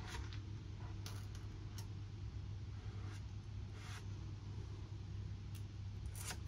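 Short, soft scrapes of a small squeegee being worked over a vinyl decal, a stroke every second or so, over a steady low hum.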